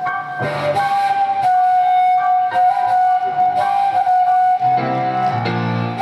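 Flute holding long, sustained melody notes that step slightly in pitch, over Petrof grand piano accompaniment; deep low piano chords come in about five seconds in.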